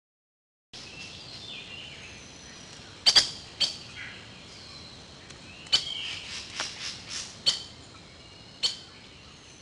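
Birds chirping and singing over a steady hiss, starting abruptly under a second in, with about seven loud, sharp chirps scattered through, the loudest pair about three seconds in.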